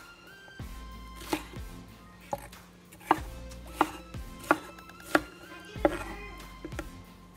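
Chef's knife chopping bell peppers on a wooden cutting board: steady knocks of the blade on the board, a little over one a second, with soft background music underneath.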